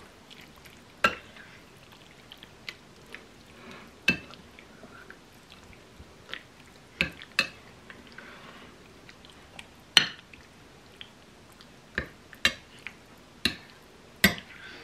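Spoon stirring a thick, wet mix of shredded canned chicken, cream of chicken soup and mayonnaise in a glass mixing bowl. The spoon knocks against the glass in sharp, irregular clinks every second or two, with soft wet squishing between.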